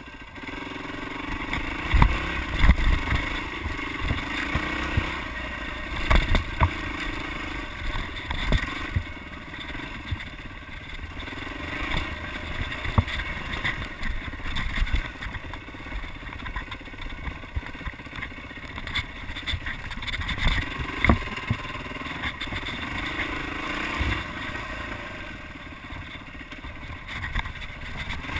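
Yamaha dirt bike engine running and revving up and down with the throttle as it climbs a rough trail. Occasional sharp thumps and clatter come from the bike hitting bumps.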